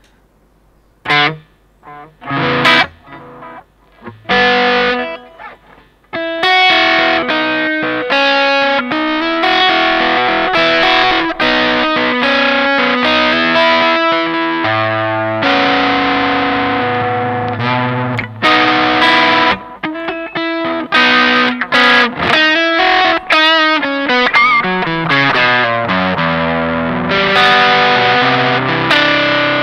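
Electric guitar played through a Vox StompLab multi-effects pedal on an overdriven drive patch, with chorus and delay mixed in. A few separate picked notes come first, then a continuous run of distorted notes and chords from about six seconds in.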